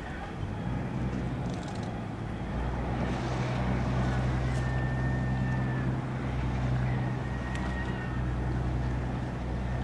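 Engine of a small fishing boat motoring slowly past, a steady low drone that grows louder about two and a half seconds in.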